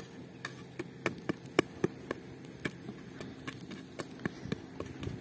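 Wood campfire crackling: irregular sharp pops and snaps, several a second, over a low steady background.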